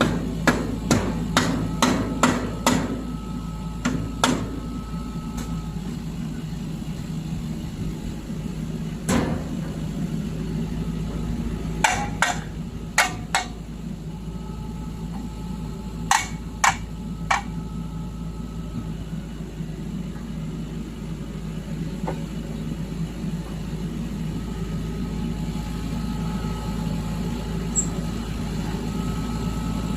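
Metal-on-metal strikes, hammer-like blows in quick clusters with pauses between, some leaving a ringing tone, over a steady low engine hum.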